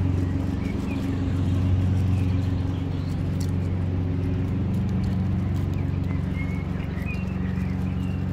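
An engine running steadily with a low drone, its pitch shifting slightly partway through. A few faint bird chirps come about a second in and again near the end.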